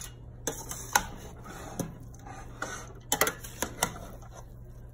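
A metal spoon clinking and scraping against a stainless steel pot while chicken pulao rice, just finished on dum, is turned over and mixed. There are a handful of sharp clinks at irregular intervals, with quieter scraping between them.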